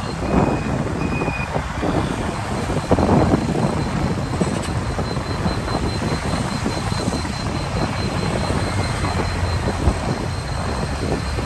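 Dense motorcycle traffic heard from within the moving stream: a steady rumble of many small engines and tyres, with wind buffeting the microphone.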